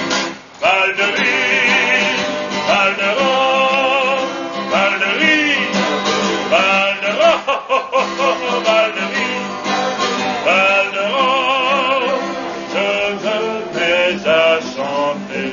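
A man singing, with vibrato on long held notes, accompanying himself on an acoustic guitar.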